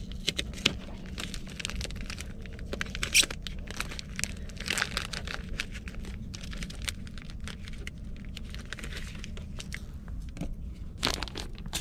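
Plastic wrap on a tray of bait anchovies crinkling and tearing as it is opened by hand, a run of small crackles with a few louder snaps.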